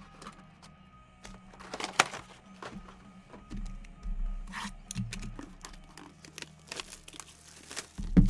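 Cellophane wrap on a trading-card box being torn and crinkled by hand, in scattered sharp crackles and snaps, the sharpest about two seconds in and just before the end.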